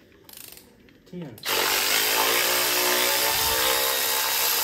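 A power tool starts suddenly about a second and a half in and runs steadily at constant speed, a loud hiss with a steady whine.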